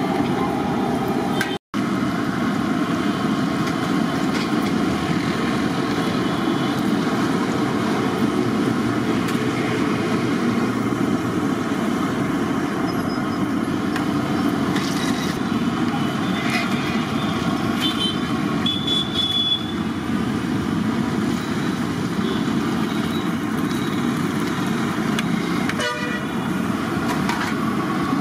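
Steady street-traffic noise with a few short vehicle horn toots around two-thirds of the way through, over the sizzle of bondas deep-frying in a kadai of hot oil.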